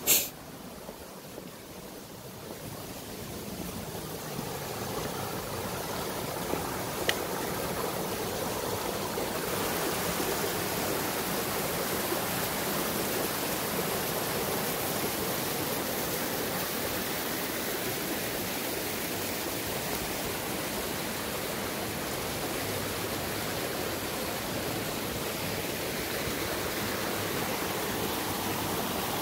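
Rocky stream running over and between boulders: a steady rush of water that grows louder over the first ten seconds or so. A sharp click right at the start and a faint one about seven seconds in.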